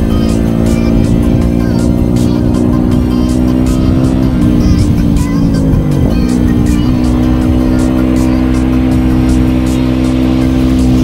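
Yamaha WR250R single-cylinder four-stroke with a YZ250F exhaust, heard from the bike while riding at a steady engine speed. About halfway through the engine note drops and then comes back up before settling steady again.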